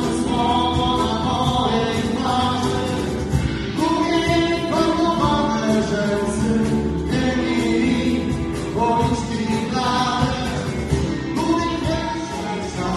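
Live rock band playing a cover of a 1990s Polish rock song, with a sung lead vocal over guitar, drums and keyboards.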